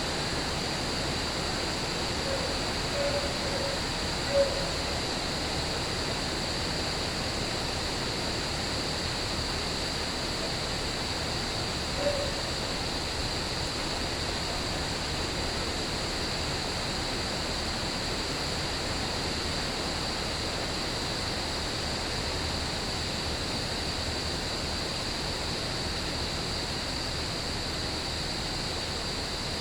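Steady rain with a continuous high chorus of crickets, and a few brief louder blips about two to four seconds in and again near twelve seconds.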